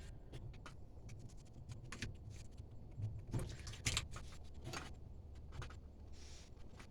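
Small clicks and light rattles of hands working a threaded propane fitting while wrapping pipe thread sealing tape around its threads, over a steady low rumble.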